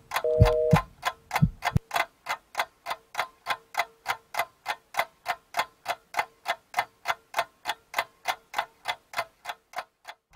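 Steady clock-like ticking, about three or four even ticks a second, with a faint steady hum under it; it stops just before the end. In the first second a two-note beep sounds once more over low thumps, which fade out about two seconds in.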